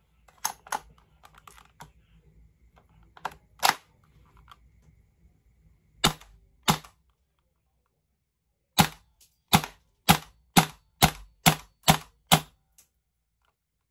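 GHK G5 gas blowback airsoft rifle firing about ten single shots, each a sharp crack, spaced irregularly at first and then about two a second near the end; a couple of clicks come as the magazine goes in at the start. This is a test fire after resealing the magazine with new o-rings, and the gun cycles normally.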